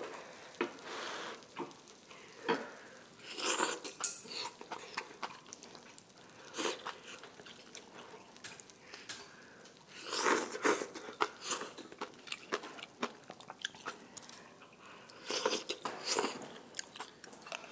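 Close-miked eating sounds: chewing and small wet mouth clicks, broken by a few louder slurps of enoki mushrooms and wild chives in doenjang stew, about three and a half, ten and sixteen seconds in.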